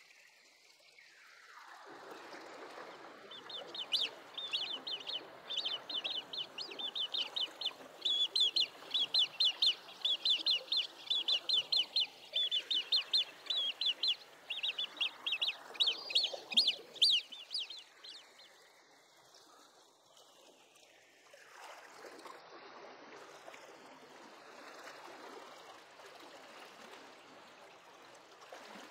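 Great crested grebe calling: a fast run of sharp, high clucking notes, about five a second, that starts a few seconds in and stops after about fourteen seconds. A faint steady wash of water lies underneath.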